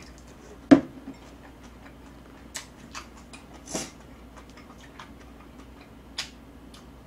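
Tableware clicks during a meal: a sharp knock just under a second in, the loudest sound, as the small ceramic noodle bowl is set down on the table, then scattered light clicks of chopsticks against the plate while picking up kimbap.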